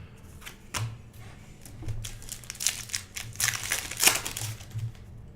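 Trading cards and their pack wrapper being handled: crinkling with light clicks, busiest in the middle few seconds.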